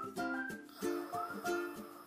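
Background music: a light, bouncy tune of short plucked-string notes, ukulele-like.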